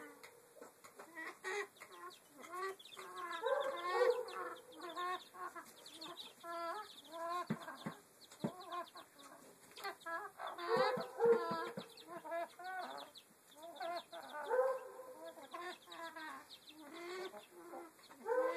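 Chickens clucking and calling, with a drawn-out call every few seconds among quicker, shorter clucks: the strange noises the chickens are making.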